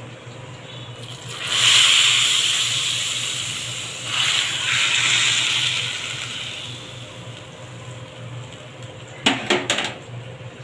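Hot ghee tadka with cumin seeds poured from a ladle onto cooked khichdi, sizzling loudly about a second in and fading, then sizzling again about four seconds in. Near the end, three quick knocks.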